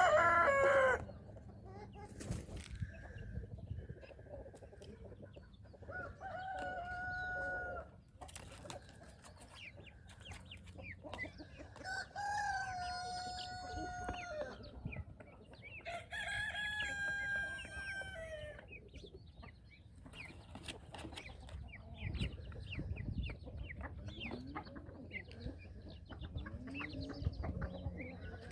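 Rooster crowing four times, each crow a long, steady call of about two seconds that drops off at the end. Softer clucking and chirping of farm fowl comes between the crows.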